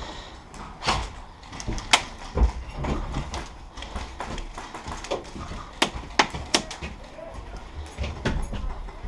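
Scattered sharp clicks and knocks at irregular intervals over a low rumble.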